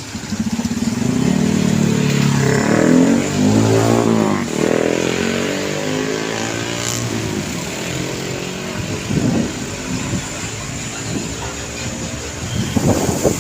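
Road traffic: a motor vehicle's engine passing close by, its note rising and then falling about three to five seconds in, followed by the running engines of further passing vehicles.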